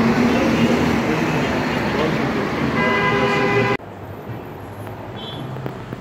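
Busy road traffic, a steady wash of passing cars, with a car horn held for about a second near three seconds in. The traffic sound cuts off suddenly just before four seconds in, leaving a much quieter room sound.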